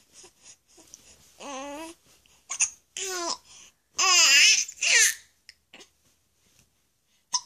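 A two-and-a-half-month-old baby cooing happily in a run of about five short, high coos with gliding pitch; the loudest and longest comes about four seconds in, with a wavering pitch.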